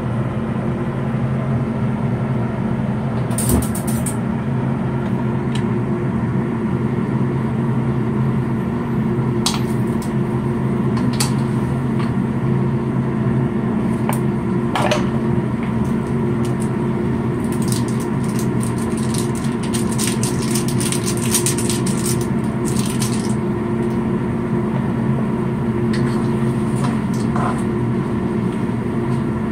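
A steady low mechanical hum, with scattered clicks and scrapes of a spatula against a wok, most of them in a busy run a little past the middle.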